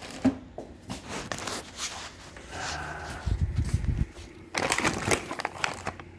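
Rustling and crinkling of a clear plastic bag and the paper instructions inside it as they are handled, with scattered clicks and a few low bumps of handling about halfway through.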